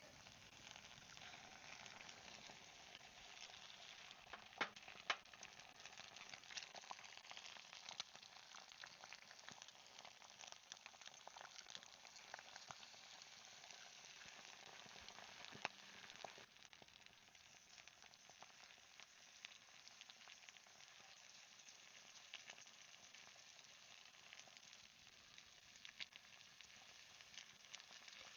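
Breakfast frying in a pan: a faint, steady sizzle with fine crackling and a few sharper ticks.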